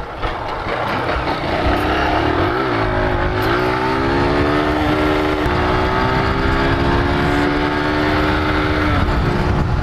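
Small motorcycle engine running under way. Its pitch dips and wavers about three seconds in, then climbs slowly as the bike speeds up, with another step near the end. Wind rumbles steadily on the microphone.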